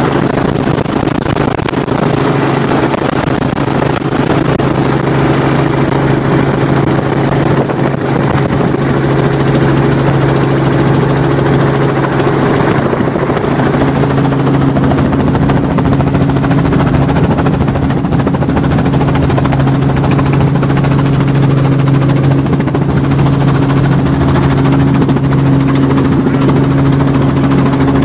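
Helicopter in flight heard from inside the cabin: a steady drone of engine and rotor over a rush of wind. A second, higher hum joins about halfway through.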